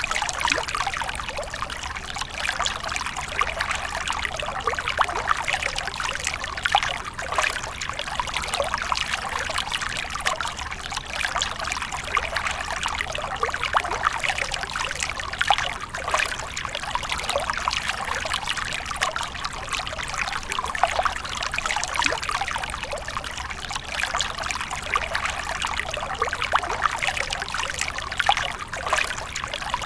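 Water splashing and trickling steadily, a continuous patter of many small splashes without pause.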